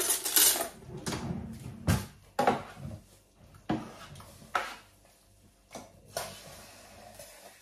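Metal kitchen utensils rattling as a utensil drawer is rummaged through, followed by about five separate sharp knocks and clinks as the utensils and the air fryer basket are handled.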